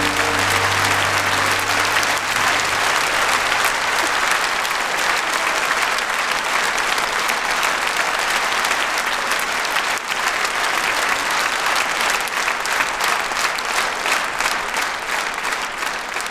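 A large concert-hall audience applauding, while the last held note of the music dies away in the first few seconds.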